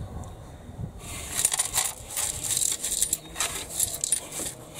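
A cloth rubbing and wiping the inside of a streetlight's dimpled metal reflector bowl: scratchy rustling strokes that start about a second in.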